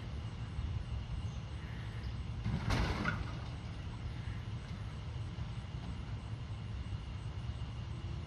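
Rear-loading recycling truck's engine idling with a steady low rumble, and a short rush of noise about three seconds in as the crew works at the back of the truck.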